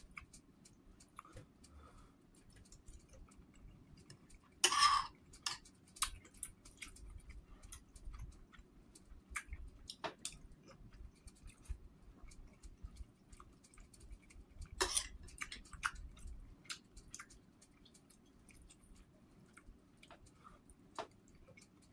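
Close-up eating sounds: a person chewing spoonfuls of rice porridge, with scattered small clicks and taps. Two louder, half-second noisy sounds come about five and fifteen seconds in, over a faint steady low hum.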